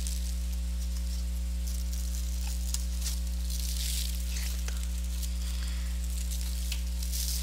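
Clear plastic packaging bags crinkling and rustling as small microphone accessories are handled, in scattered spells, over a loud steady low electrical hum.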